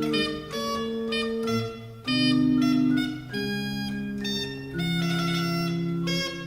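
Organ playing early polyphonic keyboard music: held notes in several voices, the chords changing about once a second, with short breaks between phrases about two seconds in and near the end.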